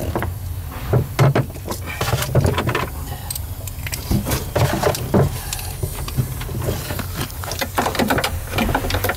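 Irregular clicks, knocks and rattles of parts and tools being handled in a car's stripped-out interior, over a steady low hum.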